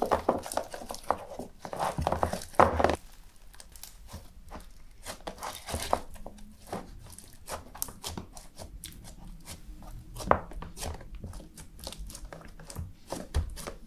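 Glitter slime packed with Bingsu beads being squeezed, folded and pressed by hand, giving a run of crunchy crackles and squishes. The crackles are loudest and densest in the first three seconds, then go on more lightly.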